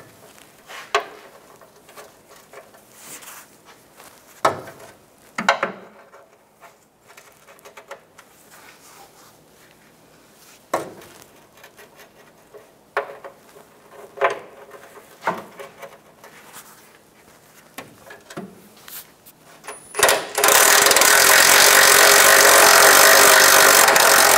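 Scattered clicks and knocks of a hand ratchet and socket being worked on a bumper mounting bolt, then, about 20 seconds in, a Metabo HPT MultiVolt cordless impact wrench runs loudly for about four seconds, spinning the bolt out.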